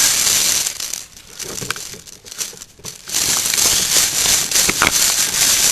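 Rustling and crinkling, with a few sharp clicks scattered through it; it drops much quieter between about one and three seconds in.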